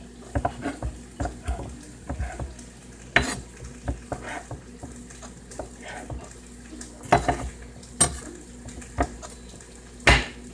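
Food frying in a skillet with a faint steady sizzle, under irregular knocks and clatter of a kitchen utensil; the loudest knocks come a few seconds in and near the end.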